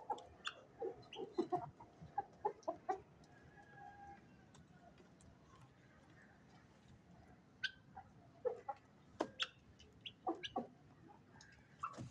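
Aseel chickens clucking: short separate clucks in two flurries, the first in the opening three seconds and the second from about the middle to near the end, with a quieter stretch between.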